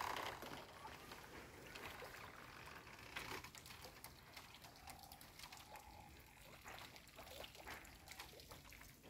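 Water dripping and trickling faintly off a raised bamboo-framed lift net (khora jal) as it drains, after a brief louder sound at the very start.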